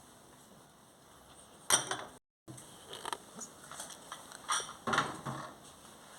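A spoon clinking and scraping against a bowl as chopped garlic is added: one sharp clink a little under two seconds in, then several lighter knocks and scrapes.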